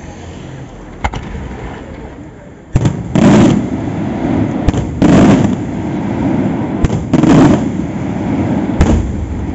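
Fireworks going off: three loud bangs about two seconds apart, each with a rumbling tail and each coming just after a sharp crack, with a few more lone cracks between them.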